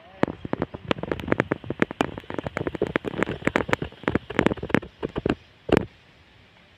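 Dense, irregular crunching and crackling of dry ground and brush underfoot as someone walks along the bank, with one louder crack just before it stops, about five and a half seconds in.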